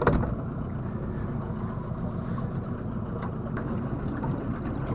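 Wind buffeting the microphone of a camera on a small aluminium boat, a steady low rumble with water sounds, and a short knock at the very start.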